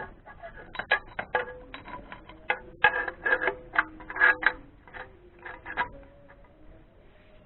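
Hand tools clicking and clinking against metal in irregular quick clusters, ratchet-like ticks and knocks, while spark plugs are being changed on an engine.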